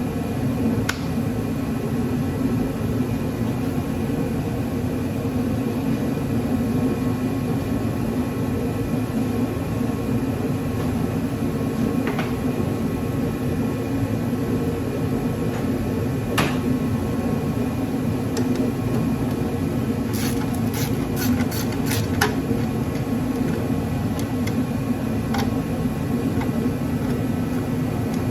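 Steady drone of a running shop heater, with scattered light metallic clinks of tools and scrap parts being handled, a quick cluster of them about two-thirds of the way in.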